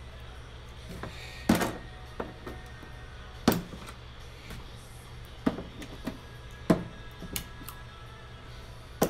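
Small screws clicking sharply as a loudspeaker's magnet pulls them from the back panel of a flat-screen TV, about eight clicks at uneven intervals, over a steady low hum.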